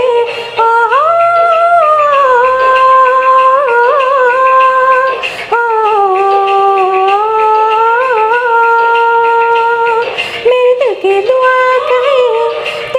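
Woman singing long, held notes. Each phrase slides up into its note and lasts about four to five seconds, three phrases in all.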